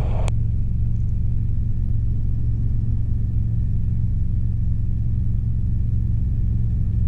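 Robinson R22 helicopter in flight: a steady low drone of engine and rotors, even in level throughout.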